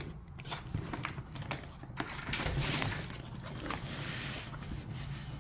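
Cardboard handling: a small cardboard box is scraped and lifted out of a larger shipping box, with irregular light taps and rustling.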